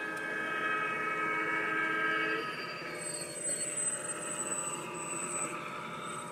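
Sound-equipped G-scale model train sounding its horn: a steady chord of several notes held for about two and a half seconds, then cut off abruptly. A fainter running sound with a thin high tone follows.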